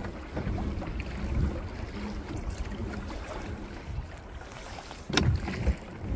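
Wind rumbling on the microphone and choppy water lapping around a kayak, with one sharp, loud hit about five seconds in.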